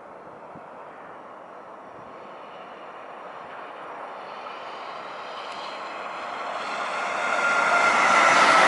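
Class E193 Siemens Vectron electric locomotive hauling an intermodal freight train as it approaches on the track: its running noise grows steadily louder, most sharply in the last three seconds as the locomotive and first wagons reach and pass.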